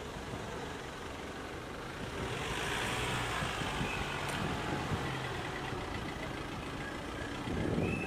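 Cars driving slowly past at close range, engines running, with a swell of engine and tyre noise as one goes by.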